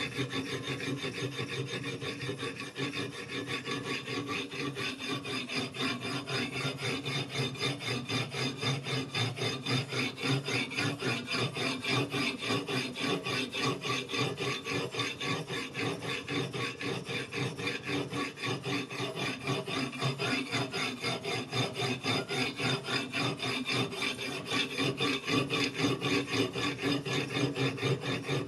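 Whetstone on a guided-rod sharpening system scraping back and forth along the steel edge of a chef's knife in quick, even strokes.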